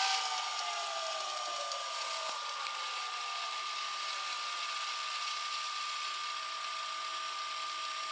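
The VHS tape transport of a Philips DVD755VR DVD/VCR combo winding a cassette at speed: a steady motor whir with a faint high whine, its pitch sliding down over the first few seconds as the reels slow, then running evenly.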